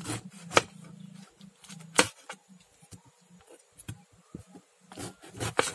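Kitchen knife cutting a peeled pineapple into pieces, giving a few sharp clicks, the loudest about half a second and two seconds in and several more near the end. A low drone sounds underneath for the first couple of seconds.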